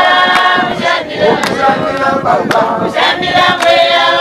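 A group of women singing a hymn in Shona together, with sharp hand claps about twice a second keeping the beat.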